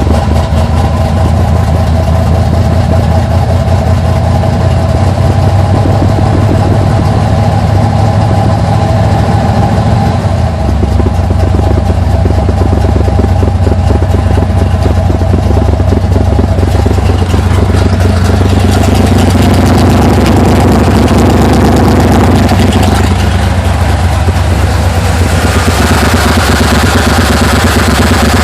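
Carbureted 350 small-block V8 with a Summit K1107 flat-tappet cam running at a rough idle after a cold start, through Flowtech headers and Thrush turbo mufflers. It is loud and distorted by a clipping phone microphone, and grows harsher about two-thirds of the way through.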